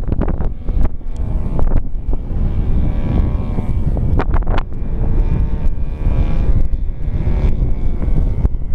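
Propeller plane's engine running overhead, its note shifting in pitch as the plane manoeuvres, under heavy wind buffeting on the microphone.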